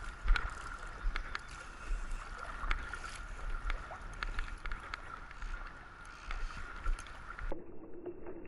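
Running river water and wind on the microphone while a hooked trout is played on a fly rod, with irregular small clicks and a steady faint high whine. The sound turns duller near the end.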